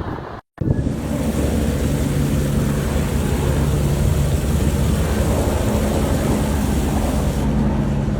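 A steady engine drone with low steady tones under a loud rushing noise, cutting in suddenly about half a second in.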